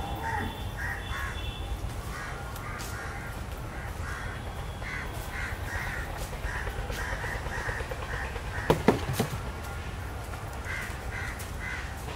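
Crows cawing in runs of short calls, with a single loud thump about nine seconds in.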